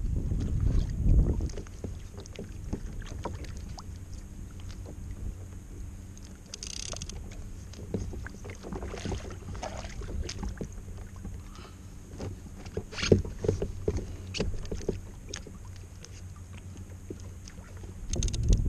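Wind rumbling on the microphone and water lapping against a fishing kayak at sea, with scattered small clicks and knocks of gear. The wind rises again near the end.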